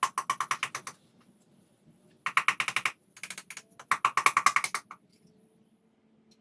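Hand ratchet clicking in quick runs of about ten clicks a second, four bursts with short pauses between, as pistons and rods go into a 318 V8 short block.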